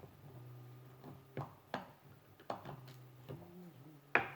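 A few sharp plastic clicks and taps from handling a toy's parts while working on it, the last one loudest, over a low steady hum.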